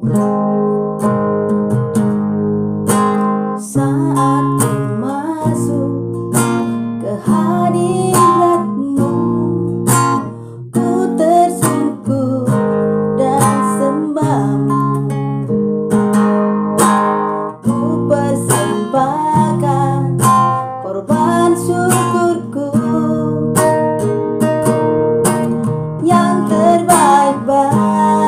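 Acoustic guitar music, strummed chords with a melody line moving above them.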